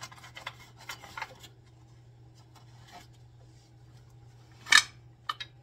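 Gloved hands handling a foil underbody heat shield, making light rubbing and small clicks, with one short, loud scrape a little before the end. A steady low hum runs underneath.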